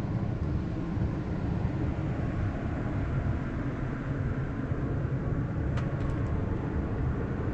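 A steady low rumble with no clear pitch, with one faint click about six seconds in.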